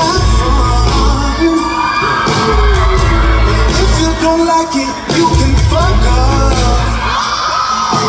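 Live pop band performance: a male lead vocal singing over electric guitar, drums and heavy bass.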